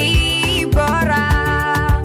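Upbeat closing music with a steady beat and a melody over it.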